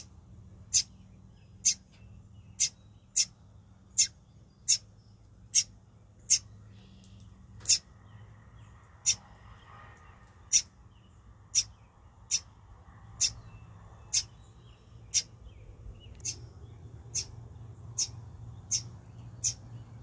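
A small bird chirping over and over, a short, sharp, high chirp about once a second.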